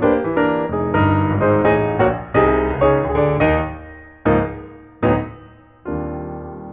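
Piano music: a quick run of notes, then two single struck notes, and a chord about six seconds in that is held and fades away.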